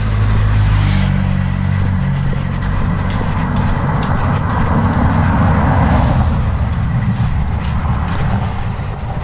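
Motorcycle engine running while riding slowly along a road. Its steady low hum turns rougher and noisier in the middle of the ride and eases again near the end.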